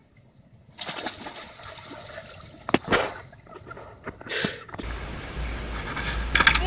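Water splashing, with several sharp loud splashes, then a steady low rumble of wind on the microphone near the end.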